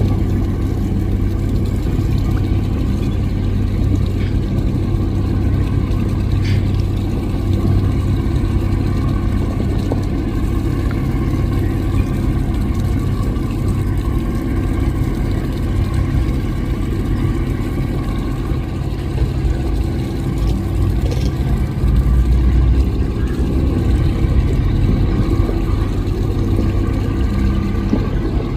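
Large speedboat engines running steadily under way: a continuous low hum that holds an even pitch.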